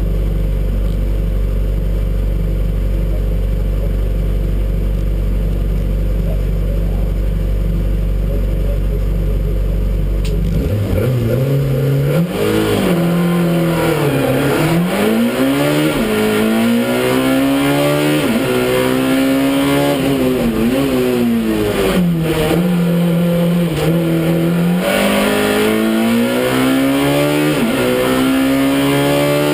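Peugeot 106 race car's engine, heard from inside the cabin, running steadily at a low, even pitch for about ten seconds. The car then launches and the engine revs hard, its pitch climbing and dropping back again and again as the driver works through the gears.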